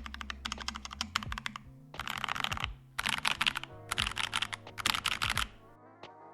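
Typing on a KBDFans Mountain Ergo mechanical keyboard, an all-aluminium split board with OPBlack switches and GMK keycaps: fast, clacky, punchy keystrokes with little case ping, in several short bursts that stop near the end. Background music plays underneath.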